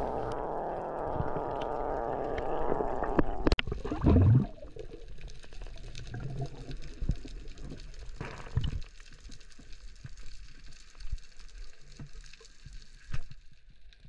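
Underwater sound picked up by a camera during a freedive: a steady rush of water for the first few seconds, a loud low surge about four seconds in, then quieter gurgling water with scattered clicks and knocks.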